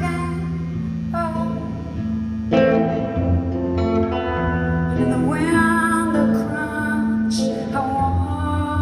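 Live music: a woman singing a slow song while accompanying herself on electric guitar, the sustained guitar notes ringing under her voice.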